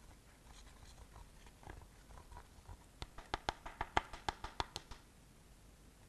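Hands handling slime-making materials: faint scratching, then a quick run of about a dozen sharp clicks, about six a second, for two seconds.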